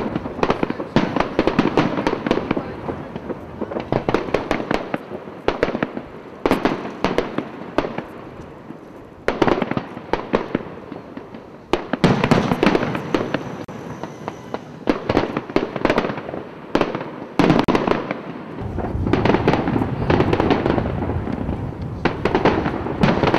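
Aerial fireworks display: a long run of shell bursts going off as sharp bangs, some spaced apart and some in quick clusters, with crackling between them. A low rumble builds underneath from about three quarters of the way in.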